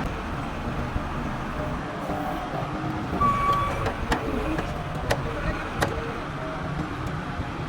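A heavy machine's engine running steadily, with a few sharp metallic knocks about four to six seconds in.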